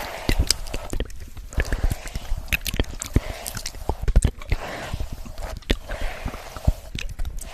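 A hairbrush drawn through hair close to the microphone: repeated soft swishing strokes mixed with crisp crackling clicks.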